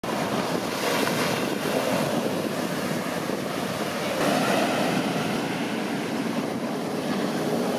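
Ocean waves breaking close to shore and whitewater rushing up the sand, a steady roar of surf that swells about a second in and again around four seconds.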